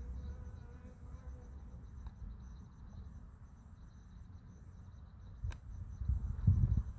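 Insects buzzing and chirping faintly, with a low rumble underneath that grows louder about six seconds in.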